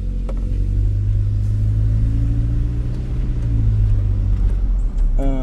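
Pickup truck driving slowly, its engine running with a steady low hum that picks up a little about two seconds in and eases off again near four seconds. A short pitched sound comes near the end.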